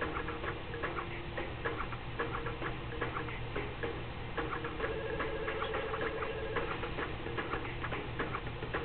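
Cell phone ringing: a ringtone of rapid, regular ticking clicks over a steady tone.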